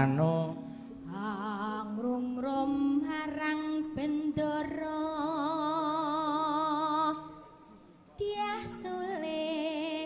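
A Javanese pesinden, a female singer, sings a tembang into a microphone in long held notes with wide vibrato. The voice breaks off briefly about seven seconds in, then goes on.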